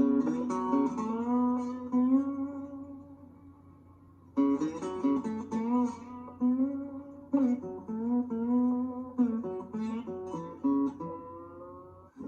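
Outro music: a guitar playing plucked notes with sliding pitch bends, in short phrases with a lull about two to four seconds in.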